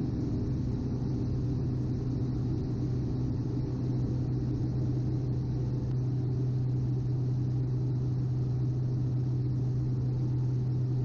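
Cessna 208 Grand Caravan EX's Pratt & Whitney PT6A-140 turboprop engine and propeller running at climb power, a steady low drone heard from inside the cockpit.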